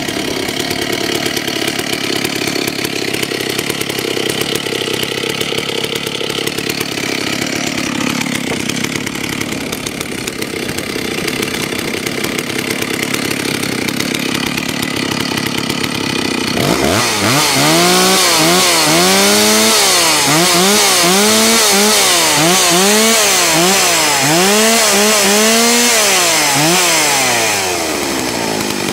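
Stihl 064 AV two-stroke chainsaw idling steadily, then revved hard about 17 seconds in, its engine speed blipped up and down about once a second for some ten seconds before it drops back to idle near the end.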